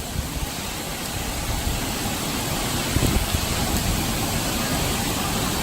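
Storm wind rushing steadily, with low gusts buffeting the microphone and a stronger gust about three seconds in. The filmer takes it for the wind of a possible weak EF0 tornado.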